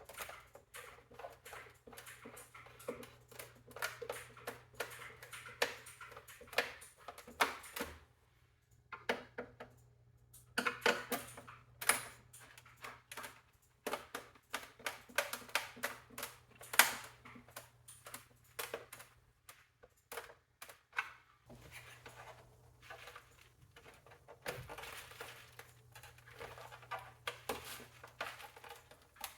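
Irregular clicks, taps and rattles of hands working on an all-in-one computer's plastic and metal housing during a teardown, over a faint steady low hum.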